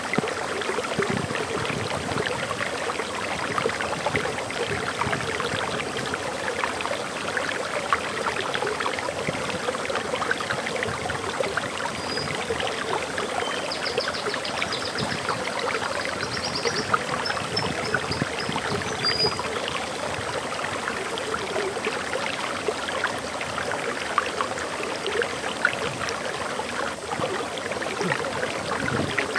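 Water running and splashing steadily over a small waterfall. A few faint high bird chirps come in around the middle.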